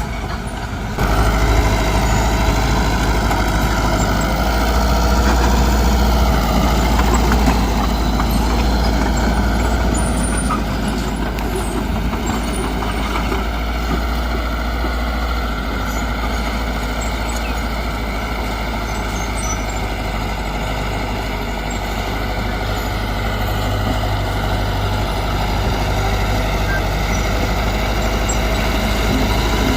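Diesel engine of a Mitsubishi BD2G bulldozer running steadily under working load, stepping up louder about a second in.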